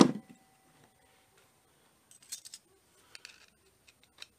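A sharp metal knock at the start, then a few faint metallic clicks and clinks as a screwdriver works the steel valve plate and discharge tube off a refrigerator compressor's cylinder head.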